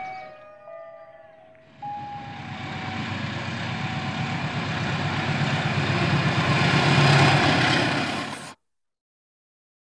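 Diesel locomotive hauling a passenger train through a small station without stopping: engine and wheel noise grow steadily louder as it approaches, then cut off abruptly about eight and a half seconds in.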